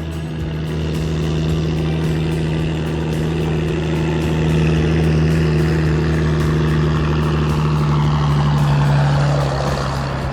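A heavy engine running steadily with a deep, even hum. It grows a little louder from about two seconds in.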